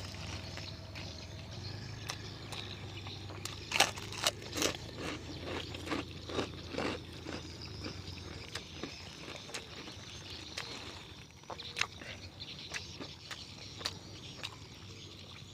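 Close-up eating sounds of a person chewing chicken: scattered wet clicks and smacks of the mouth and teeth, busiest about four to seven seconds in, over a low steady rumble that fades out about halfway.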